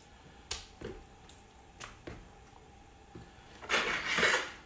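Raw steak being handled and cut into chunks with a kitchen knife on a tiled counter: a few light clicks, then a louder rasping noise a little under a second long near the end.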